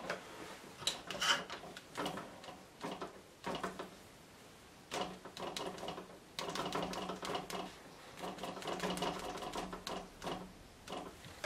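A sponge loaded with acrylic paint dabbed again and again against paper on a board, giving runs of quick taps with short pauses between.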